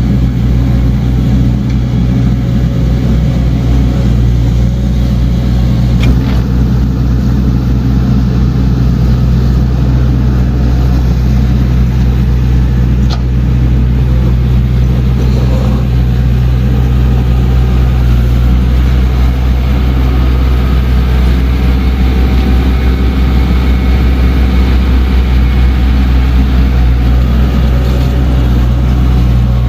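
Heavy earthmoving machine's diesel engine running steadily close by, with a couple of brief sharp clanks.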